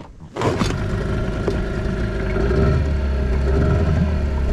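Small outboard motor running steadily, driving an inflatable dinghy along. It picks up a little about halfway through.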